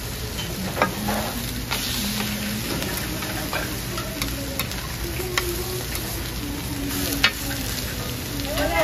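Food frying and sizzling in hot oil, with a metal utensil stirring and clicking against the pan now and then.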